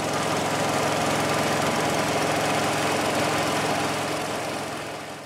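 A bamboo wind whirligig (kolecer) spinning fast on a tall pole, its propeller giving a steady droning hum with a rough whirring edge. The drone fades away near the end.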